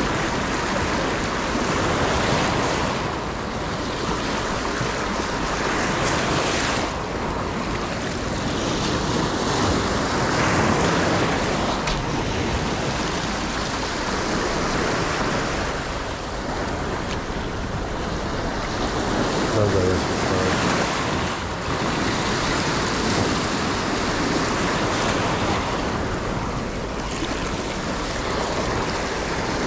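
Sea waves surging and washing over shoreline rocks, a steady rush that swells and eases every few seconds, with wind buffeting the microphone.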